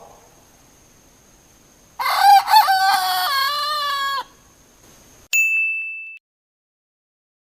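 A rooster crows once, about two seconds in, a single crow of about two seconds. About a second later comes a short bright ding that rings and fades within a second.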